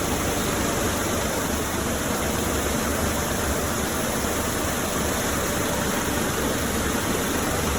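A 20-micron vibration filter running: a steady, even rushing machine noise with a low hum beneath it.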